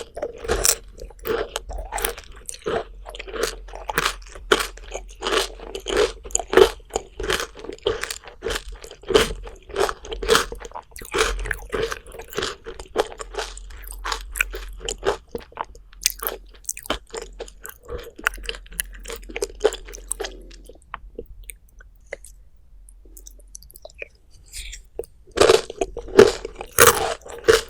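Close-miked eating sounds: a person biting and chewing crunchy food in quick, dense crunches. There is a lull of a few seconds past the middle, then louder crunching near the end.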